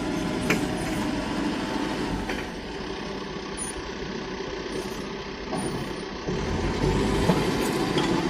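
JCB 3DX backhoe loader's diesel engine running as it works, with a few sharp metallic knocks. The engine gets louder about six seconds in.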